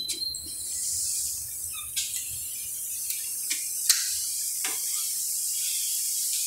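Steady high hiss of textile knitting machines running on a factory floor, with a few sharp clicks.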